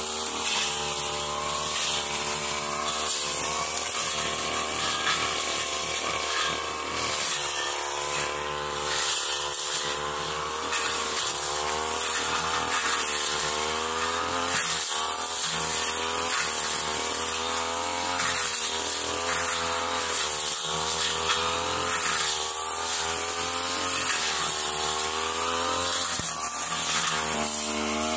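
Backpack brush cutter running under load as its blade cuts through grass and shrubs, the engine note rising and dipping again and again as the blade bites and frees.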